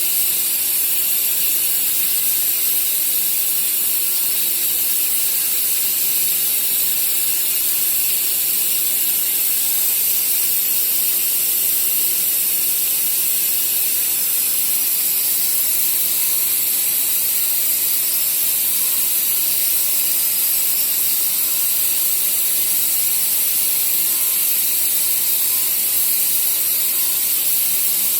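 ATC CNC router machine running steadily: a constant high hiss with a steady hum underneath.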